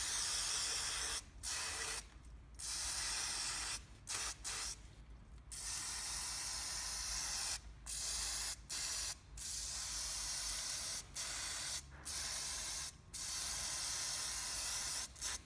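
Aerosol degreaser sprayed in a dozen or so hissing bursts, each lasting a fraction of a second to about two seconds, with short pauses between them. It is being sprayed into a fencing stapler's cylinder to clear carbon and burnt oil.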